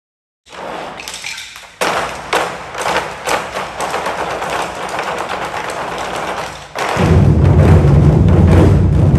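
Ensemble of red Chinese drums in a hall: scattered sharp knocks over a noisy murmur at first, then about seven seconds in the drums come in loud together with heavy, low booming strokes.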